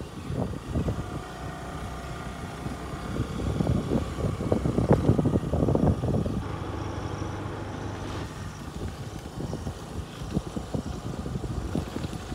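A motor vehicle driving over a rough, unpaved track: a low engine hum with many irregular bumps and knocks from the jolting ride, heaviest about halfway through.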